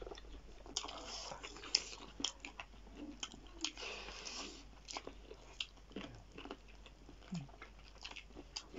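Close-up chewing and biting of chicken feet: irregular wet smacks and small crunches of eating.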